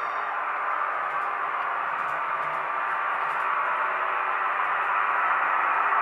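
Roco H0-scale class 628.4 diesel railcar model running with its sound decoder, the diesel engine sound coming as a steady, hissy drone from the model's small speaker and growing louder as the model approaches, with faint clicks.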